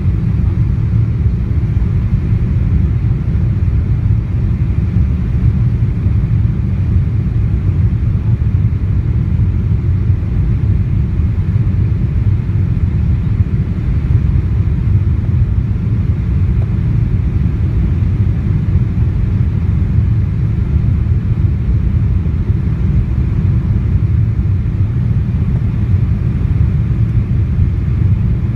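Boeing 777-200ER cabin noise on approach with flaps extended: a steady, even low rumble of engines and airflow heard inside the cabin from a window seat beside the wing.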